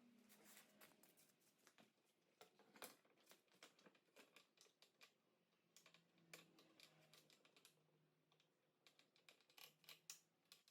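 Near silence, broken by faint, irregular small clicks and ticks.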